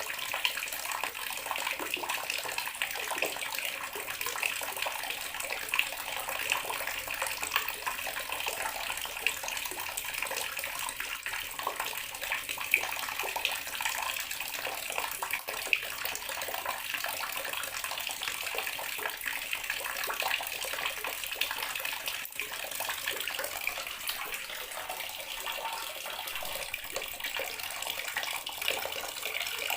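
Water tap running steadily into a bathroom sink, with an even hiss and a patter of small splashes.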